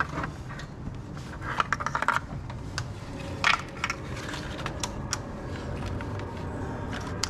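Scattered small clicks, light knocks and scrapes of gloved hands handling wiring and parts in a car's engine bay during an oxygen sensor replacement, with a sharper click about three and a half seconds in.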